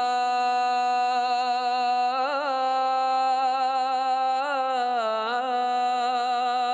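Male voice reciting the azan, the Islamic call to prayer, holding one long melodic note from the line 'ashhadu anna Muhammadan rasulullah', with ornamental turns about two seconds in and again between four and five and a half seconds.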